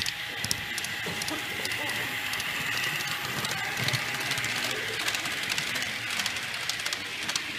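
Model electric freight train running along the layout track: a steady whine from the locomotive with a scatter of light clicks from the wheels on the rails, over the murmur of an exhibition hall.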